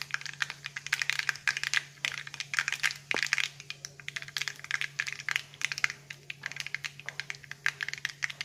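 Mustard seeds popping and crackling in hot coconut oil in a pan: a rapid, irregular run of sharp little pops as the seeds splutter for a tempering.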